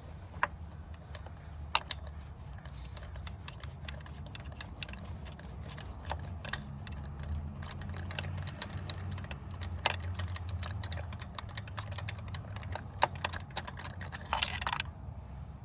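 Irregular light metallic clicks and ticks of a 5/8-inch spark plug socket and extension being turned by hand to unscrew a loosened spark plug, with a short scraping rustle near the end, over a low steady hum.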